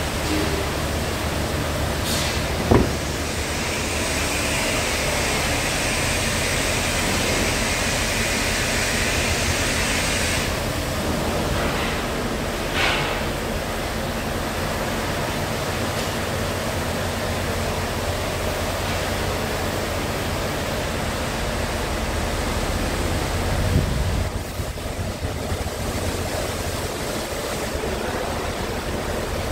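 Scania R tractor unit's diesel engine idling under a steady hiss; a brighter hiss joins for the first ten seconds or so, with a sharp click a few seconds in and a thump near the end.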